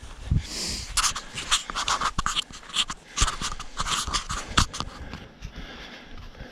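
A hiker panting hard as he climbs, with his footsteps and scuffs on rough ground coming thick and fast, then easing after about five seconds.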